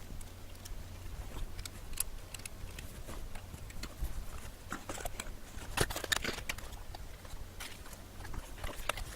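Typing on a Clueboard mechanical keyboard with jailhoused Cherry MX Blue switches: irregular keystroke clacks with the switches' click silenced by spacers in the click jackets, a few keys struck harder partway through.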